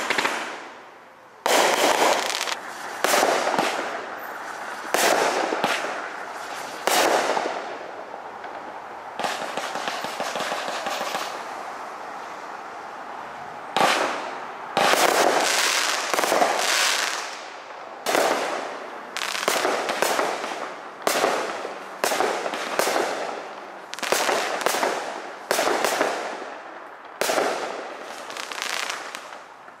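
Aerial fireworks going off one after another: sharp bangs, each trailing off into crackling, with a longer run of crackle about ten seconds in and bangs coming roughly once a second in the second half.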